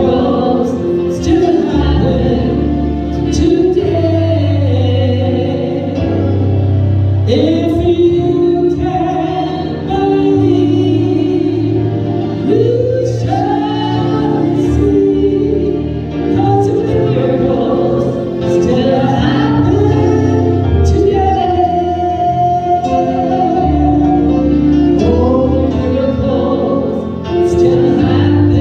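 Gospel song sung by voices with a choir over a band backing with a steady bass line, the long sung notes wavering with vibrato.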